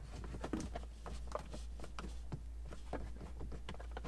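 Faint, irregular small clicks and taps of a hand handling and pressing on a 3D-printed plastic box as it is fitted into a car's center console, over a steady low hum.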